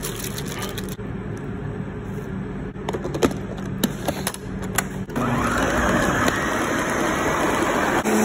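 A few sharp plastic clicks as the Ninja blender's lid is fitted and locked onto the jar, then about five seconds in the blender motor starts and runs steadily, churning a thick cream-cheese cheesecake batter.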